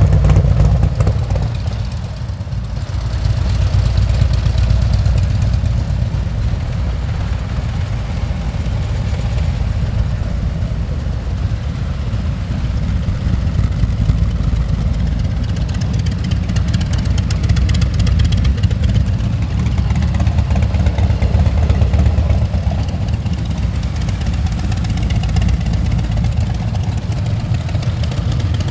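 Several Harley-Davidson V-twin motorcycle engines idling through aftermarket exhausts in a steady, deep, low rumble. The level swells and fades as the line of bikes goes by one after another.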